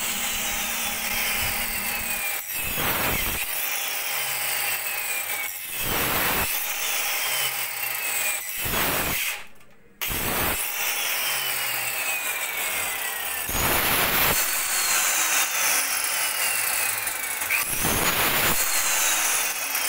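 Small handheld electric circular saw cutting PVC pipe into short lengths. The motor runs with a whine that repeatedly sinks in pitch, broken by several loud rasps as the blade goes through the pipe. The saw cuts out for a moment a little before halfway and then starts again.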